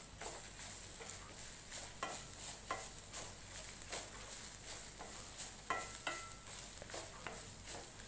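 Wooden spatula stirring grated coconut, dried red chillies and vadagam around a stainless steel kadai, with irregular scrapes and light knocks against the pan over a faint sizzle of frying in oil.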